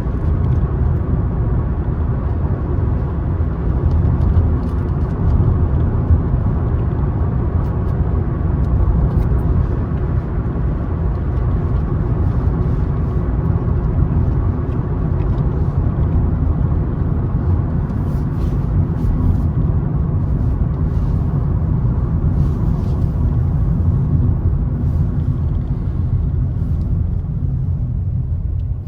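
Car road noise: a steady low rumble of tyres and engine while driving, with faint light ticks and rattles over it.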